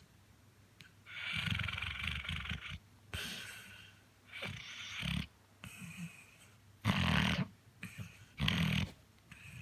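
Chocolate Labrador retriever snoring heavily in its sleep. About five rasping snores come at uneven intervals, each roughly half a second to nearly two seconds long, with short quiet gaps between breaths.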